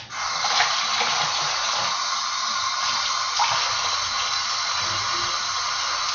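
Kitchen tap running steadily, water splashing into the sink; it comes on suddenly and eases off slightly near the end.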